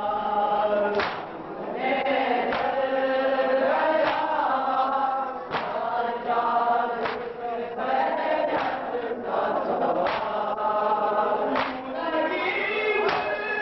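A group of men chanting a noha, a Shia lament, in unison, with a sharp beat of hands on bare chests (matam) about every second and a half.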